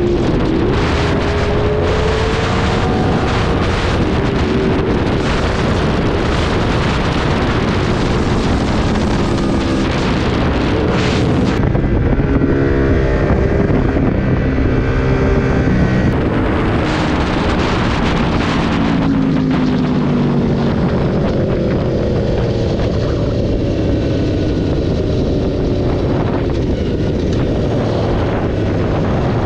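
Aprilia RSV4's V4 engine running hard at speed, its pitch rising and falling with throttle and gear changes, under heavy wind noise on the microphone.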